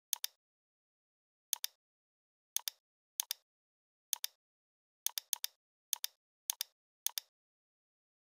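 Computer mouse button clicking about ten times at irregular intervals, each click a quick double tick of press and release.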